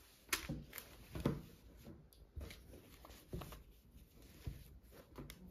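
A handful of light knocks and taps with some rustling, as of small objects being handled and set down; the two loudest knocks come about a third of a second and a little over a second in.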